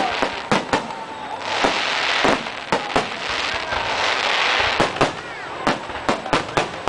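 Fireworks display: shells bursting in a rapid, irregular string of sharp bangs, with stretches of hissing crackle between them.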